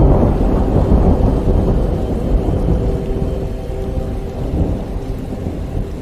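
A long, loud, low rumble of thunder with rain hissing, swelling at the start and slowly easing off, over a faint held drone.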